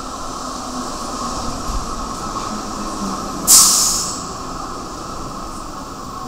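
Berlin U-Bahn large-profile train entering the station and running along the platform with a steady hum and running noise. About three and a half seconds in, a sudden loud hiss of air cuts in and dies away within a second.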